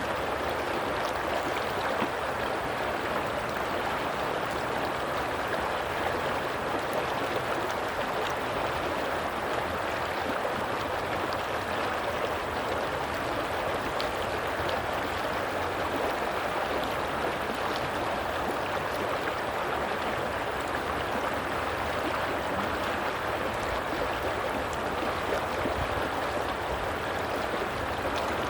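Stream of water running and gurgling over rocks, a steady even rush.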